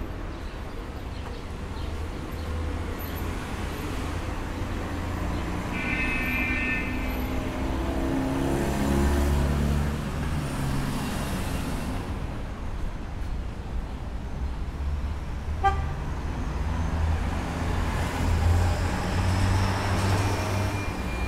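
Street traffic: cars passing with a steady engine and tyre rumble, and one short car horn toot about six seconds in. A single sharp knock sounds near the end.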